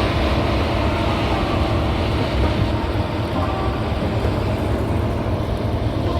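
Combine harvester running steadily while harvesting wheat: a continuous, even machine rumble.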